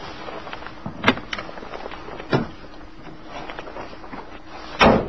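A few light knocks and clicks as a cover panel is set over the cargo area of a van, then the rear hatch slams shut near the end, the loudest sound.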